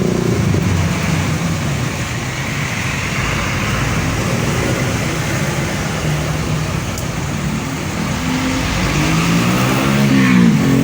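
Bus engine running amid road traffic noise, its note rising and falling near the end.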